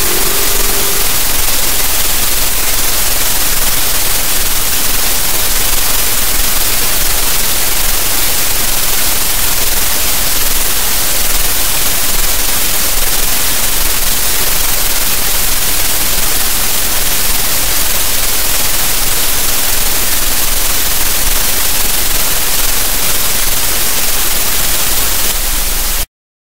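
Loud, steady static-like noise, a bright hiss with a low hum beneath, filling the close of an electronic music track; it cuts off suddenly near the end.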